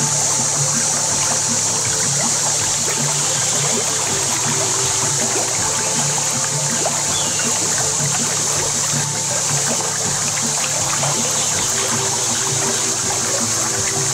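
Shallow river riffle: water rippling and trickling steadily around a kayak.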